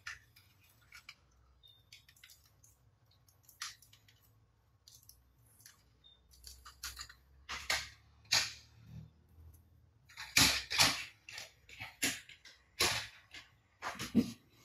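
Hard plastic toy jets and action figures being picked up and set down on a tabletop: scattered sharp clicks and knocks, with a run of louder knocks in the second half.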